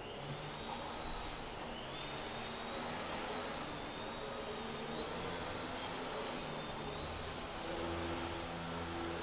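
Small radio-controlled aerobatic plane's electric motor and propeller whining as it hovers and manoeuvres, the high whine stepping up and down in pitch with the throttle.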